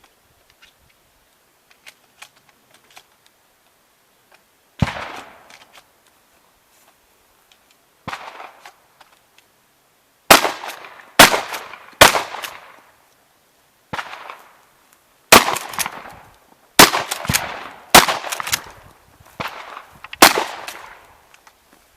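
A shotgun fired about eleven times at an uneven pace: two isolated shots, then a quicker string of shots roughly a second apart, each ringing out with a long echoing tail. Faint light clicks come before the firing starts.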